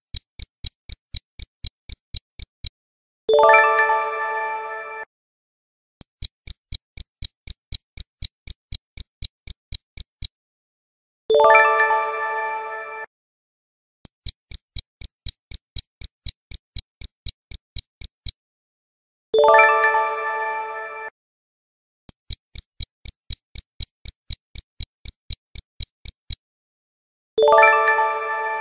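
Quiz countdown sound effects: a stopwatch ticking about three times a second for roughly four seconds, then a single ringing chime that fades over about two seconds as the correct answer is revealed. The tick-and-chime cycle runs four times.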